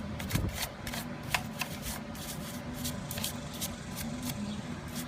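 Small hand brush scrubbing around the mounting hole of a riding mower's ignition switch: a run of quick, irregular scratchy strokes and ticks.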